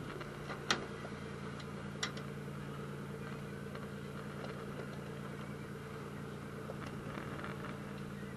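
Fishing boat's engine running with a steady drone, joined by two sharp knocks, about a second and two seconds in, and a few faint ticks.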